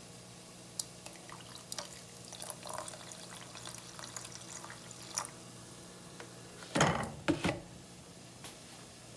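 Vinegar poured from a plastic jug into a saucepan of liquid dye, the thin stream trickling and splashing with small plinks for the first few seconds. Two louder knocks follow about seven seconds in, over a faint steady low hum.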